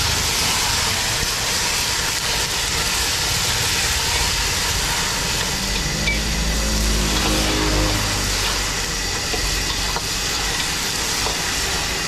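High-pressure gas wok burner hissing steadily under a flaring wok while seafood sizzles as it is stir-fried. A low hum swells and fades between about six and eight seconds in.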